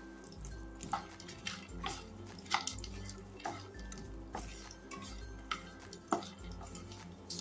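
Makhana (fox nuts) being stirred in a pan with a spatula: light clicks and taps about once a second, over soft background music.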